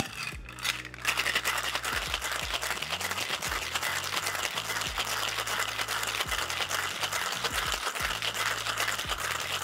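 Ice cubes rattling fast and steadily inside metal cocktail shaker tins as a cocktail is shaken hard, starting about a second in. It is the 10 to 12 second shake with ice that chills and dilutes the drink.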